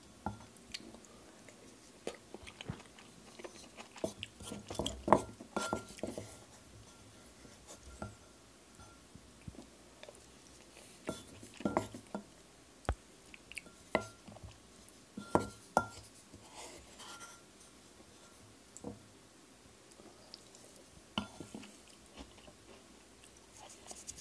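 Scattered faint clicks, taps and knocks in a small quiet room, a few louder than the rest.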